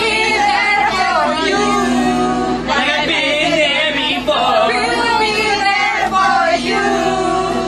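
A group of women and men singing a song together.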